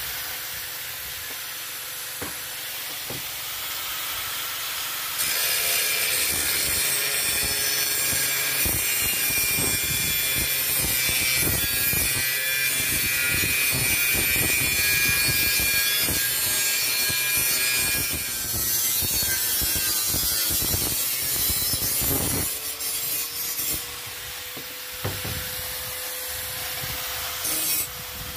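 Angle grinder with a cutting disc cutting through a steel tube. It runs with a steady whine, bites into the metal with a loud, harsh cutting noise from about five seconds in until about twenty-two seconds, then spins free again with a few brief touches on the metal near the end.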